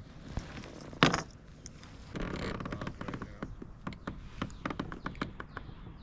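A hooked smallmouth bass being landed at a kayak: a loud knock about a second in, a short noisy rush soon after, then a run of irregular small clicks and taps.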